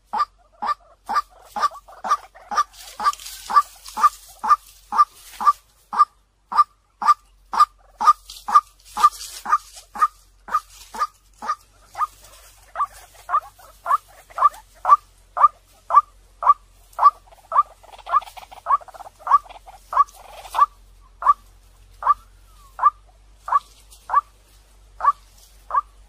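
White-breasted waterhen calling: a long, even series of short, clear notes repeated about twice a second, coming a little more slowly in the last few seconds.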